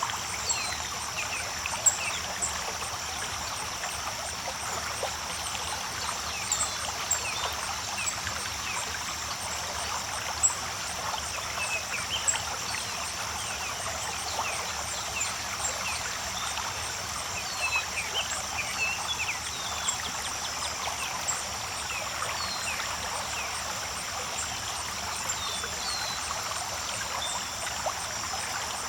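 Waterfall creek water running steadily, with short bird chirps scattered throughout and a steady high hiss above the water.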